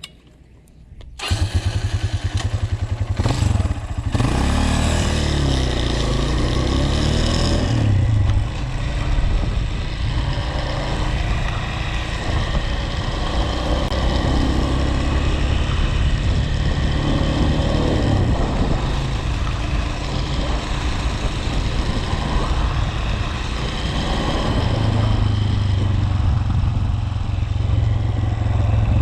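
An engine starts about a second in, revs up briefly, then keeps running with the revs rising and falling.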